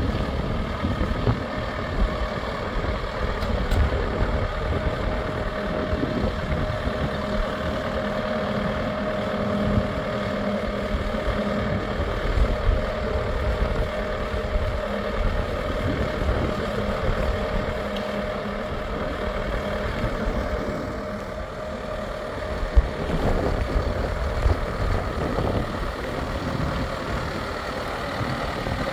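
John Deere 6130R tractor's diesel engine idling steadily.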